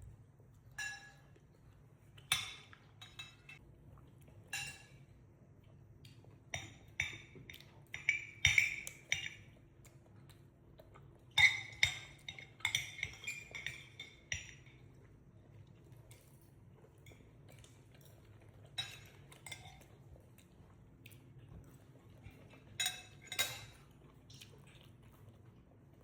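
Cutlery clinking and scraping on plates during a meal: irregular light clinks, some ringing briefly, with busier clusters about a third and halfway through.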